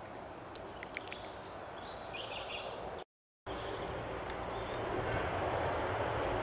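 Quiet outdoor ambience with a few short, high bird chirps; after a brief cut about three seconds in, a louder steady rushing noise with a low hum takes over and swells slightly.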